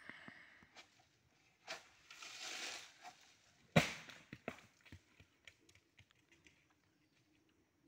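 A sharp crack, about a second of rustling through dry fronds, then one heavy thud about four seconds in, followed by a few light knocks: coconuts cut loose with a bamboo hook pole falling through the palm and landing on the ground.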